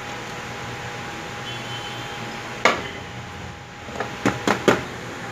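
Aluminium cake tin and glass plate clunking together as the tin is turned over onto the plate, about two and a half seconds in. Near the end come a small click and three quick knocks on the upturned tin, tapping it to release the cake.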